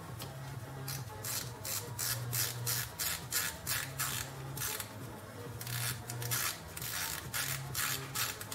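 A 5 mm hex key turning an ATV's front differential drain plug back in. It makes a run of short scraping strokes, about three a second.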